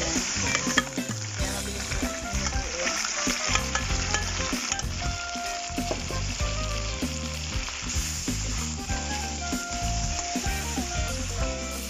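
Marinated pork and liver sizzling in hot oil in a wok as it is stirred, with a steady frying hiss and scattered clicks and scrapes of the spatula.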